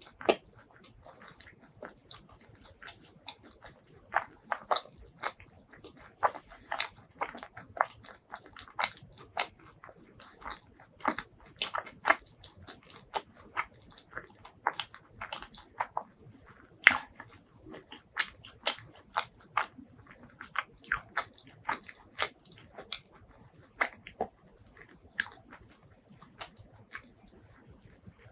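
Close-miked eating: a person chewing and biting spicy food, with many short, irregular, wet mouth clicks and smacks.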